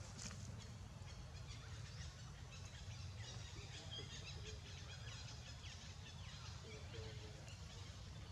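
Faint outdoor ambience: many scattered high chirps and short calls from wild animals, over a steady low rumble.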